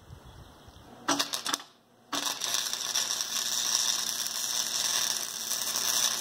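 Arc welding on steel angle iron: a short crackling burst about a second in, then after a brief break a steady crackling hiss as a longer weld bead is run.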